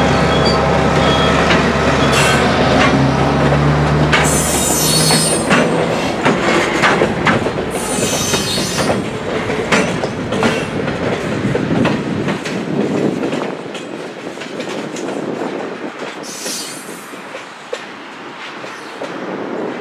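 Freight train passing: the diesel locomotive's engine drone fades over the first few seconds, then the freight cars roll by with wheel clicks over the rail joints and several short bursts of high-pitched wheel squeal. The train grows quieter in the last several seconds.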